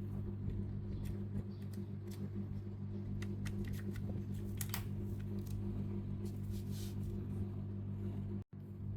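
Light clicks and taps of computer parts being handled, over a steady low electrical hum. The sound cuts out for a moment near the end.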